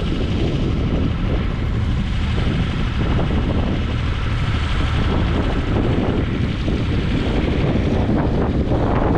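Strong wind buffeting the microphone, a dense, steady low rumble that covers everything else.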